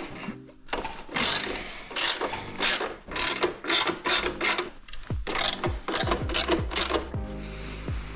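Socket ratchet wrench clicking in quick back-and-forth strokes, several bursts a second, as it backs out bolts.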